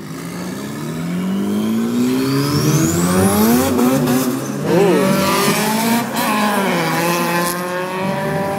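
A car's engine revving hard in a street stunt: its pitch climbs steadily over the first few seconds, dips and rises again around the middle, then is held at high revs, with tyres squealing.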